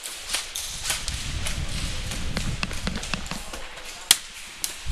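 Footsteps, a low rumble of movement and knocking gear as a player runs with an airsoft rifle, with sharp irregular clicks throughout and one loud crack about four seconds in.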